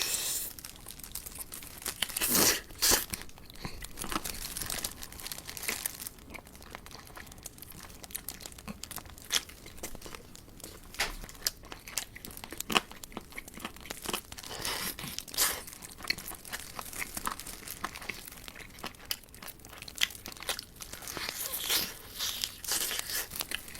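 Crispy fried chicken legs being bitten, torn apart and chewed close to the microphone: irregular crunches and crackles, with louder clusters of bites now and then.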